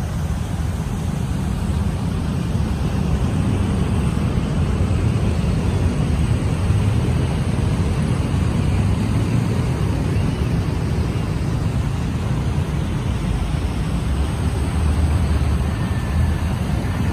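Steady rumble of busy city road traffic, cars and motorbikes, with a continuous low drone that swells a little now and then.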